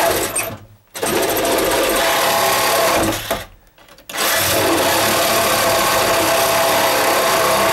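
Battery-powered reciprocating saw (Sawzall) cutting through a wooden 2x4 stud with a steady, rapid buzz. The cut stops twice, briefly about half a second in and for nearly a second around three and a half seconds in, then runs on.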